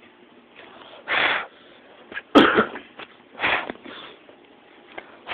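A puppy making weird short breathy noises, four of them about a second apart, the loudest a little over two seconds in.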